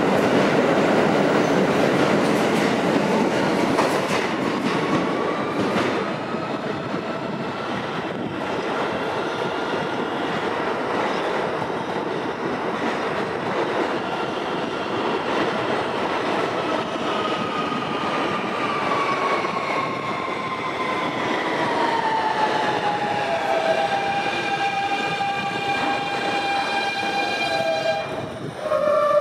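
New York City subway train running out of the station: a loud rumble and rattle of steel wheels on the rails that eases after about five seconds and carries on out of sight. A long whine slowly falls in pitch through the second half, with several steady tones joining it near the end.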